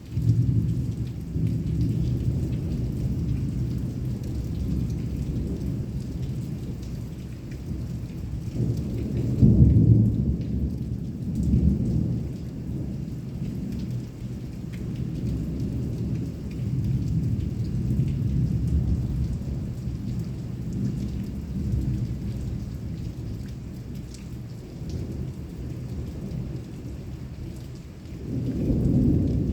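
Thunder rumbling almost without a break over heavy rain, starting suddenly, with its loudest peal about ten seconds in and another swelling near the end.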